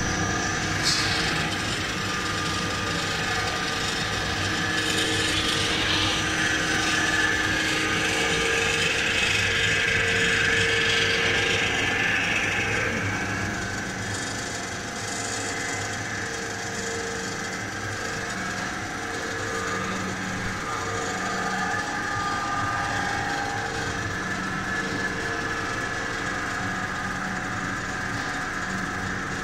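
Single-screw snack pellet extruder line running, with the steady hum and whine of its motors and drives. A rushing hiss rises over it for several seconds in the first half, then dies away.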